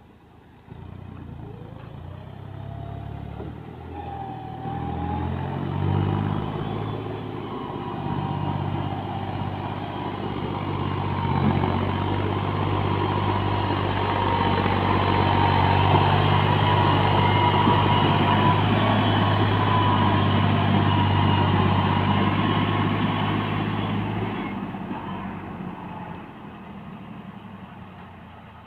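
Farm tractor's diesel engine pulling a trolley loaded with earth, getting louder as it approaches and climbs a bank, loudest around the middle, then fading as it drives past and away.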